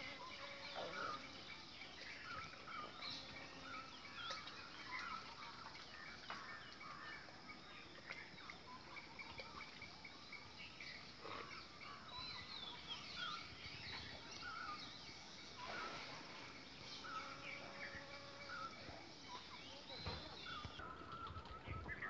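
Faint outdoor ambience of several birds chirping and calling in short, scattered calls over a low hiss.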